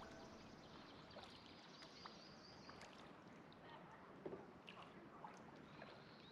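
Faint sounds of kayak paddling on calm water: small paddle splashes and drips with a few light knocks, one a little louder about four seconds in.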